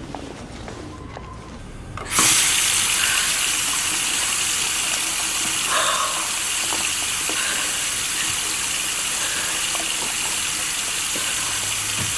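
Quiet at first, then about two seconds in a strong stream of running water starts suddenly and keeps up a steady rush.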